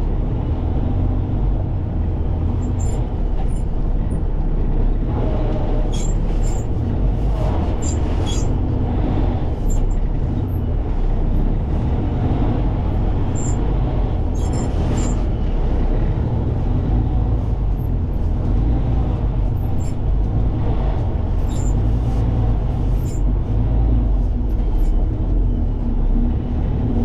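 Heavy diesel truck's engine running with a steady low rumble, with frequent short rattles and clicks over it.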